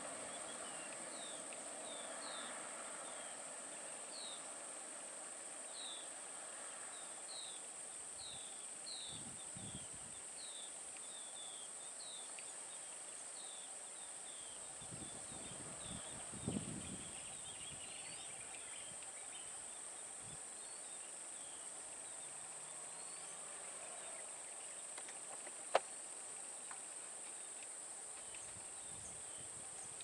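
Outdoor ambience: a steady high-pitched insect drone, with a bird repeating short falling chirps about once a second through the first half. A brief low thump comes about halfway through, and a single sharp click later on.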